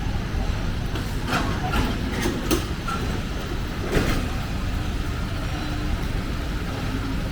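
Busy city street ambience: a steady low rumble of engines and traffic, with about five short sharp clatters or knocks in the first four seconds.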